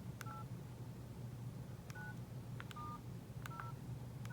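Nokia 8600 Luna keypad tones: keys pressed one at a time, each giving a click and a short two-note dialing beep, about four in all, spaced roughly a second apart.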